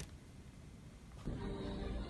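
Faint room tone, then background music comes in suddenly just over a second in.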